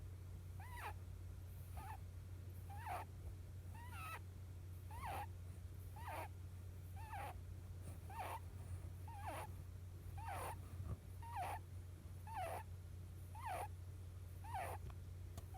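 A sleeping pet rabbit making short squeaky snoring calls, about one a second, each a brief chirp that bends in pitch.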